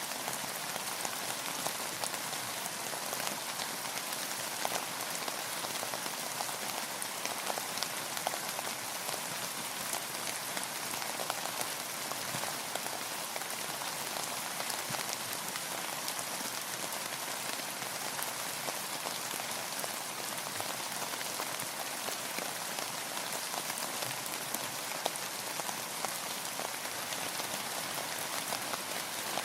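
Steady rainfall, with many individual drops ticking on a surface over an even hiss of rain.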